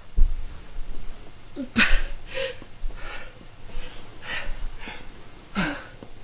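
A man's strained, gasping breaths during a seizure, a string of about six short wheezy bursts, some with a brief grunt or whimper of voice, while he cannot get words out. Low thumps of the camera being handled, the loudest right at the start.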